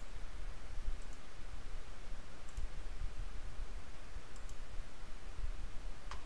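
Computer mouse clicking, about four faint clicks a second or two apart, most heard as a quick double tick of button press and release, over a steady low background hum.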